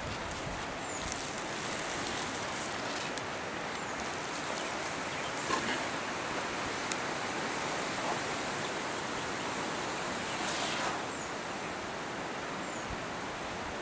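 Steady outdoor hiss of dry scrub-forest ambience, with a few faint high chirps and occasional soft rustles.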